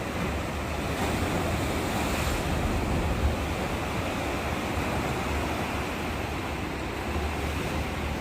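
Ocean surf washing onto a beach, swelling a little about a second in, with wind on the microphone adding a steady low rumble.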